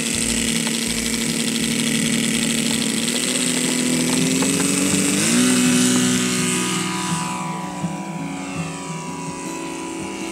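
Radio-controlled model aeroplane's engine and propeller running steadily, then opened up about five seconds in, stepping up in pitch for the takeoff run; after about seven seconds the pitch falls away as the model climbs out and flies off.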